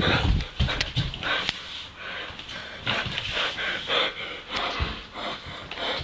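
Rapid, rough panting breaths, with heavy thumps and scuffling in the first moment.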